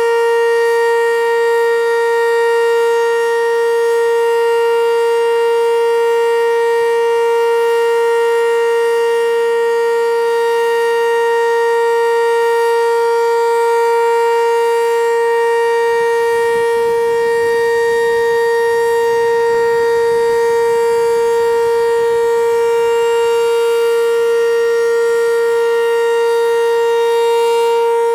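Sentry 10V2T dual-tone outdoor warning siren sounding a loud steady tone at constant pitch, with no rise or fall, its two tones blending into a rich overtone.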